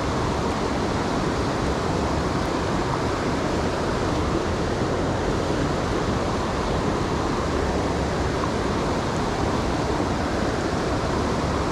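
Steady rush of fast-flowing river water from the West Branch of the Ausable River, an even noise that holds unchanged throughout.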